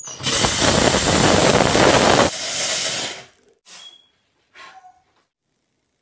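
Handheld household steam cleaner releasing a jet of steam from its nozzle: a loud hiss for about two seconds that cuts off abruptly, then a quieter hiss dying away over the next second.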